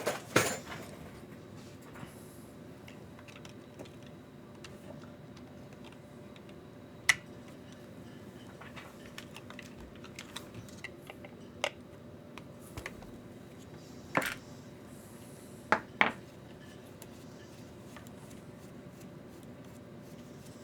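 Small hand tools and metal RC car parts being handled on a workbench: a handful of scattered sharp clicks and light knocks, two in quick succession about three-quarters of the way through, over a steady faint hum.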